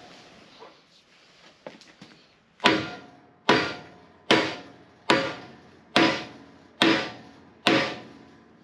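A hammer striking a steel bushing seven times, a bit under a second apart, each blow ringing, driving a freezer-shrunk press-fit bushing into its bore.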